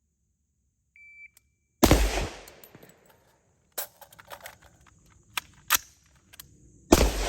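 A shot timer beeps once, then a 7.62x39 AR-15 rifle fires a single loud shot. A few seconds of small metallic clicks and knocks follow, an unplanned magazine change, and a second rifle shot comes near the end.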